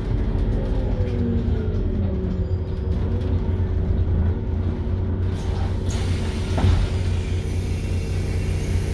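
Volvo B7RLE city bus's rear-mounted six-cylinder diesel and ZF Ecomat automatic gearbox, heard from inside the passenger cabin, running with a steady low drone as the bus slows to a stop. Falling gearbox tones sound early on, there is a knock from the body about two-thirds in, and air hisses near the end.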